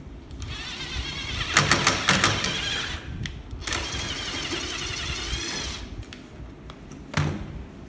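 Cordless impact drill driving a thread-cutting tap into a hole to cut an M6 thread: the motor whirs for a couple of seconds with a burst of hard clattering clicks partway through, then runs a second time for about two seconds. A single sharp click comes near the end.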